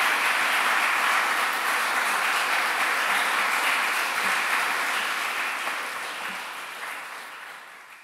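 Audience applauding a lecture: many hands clapping in a steady mass, fading out over the last couple of seconds.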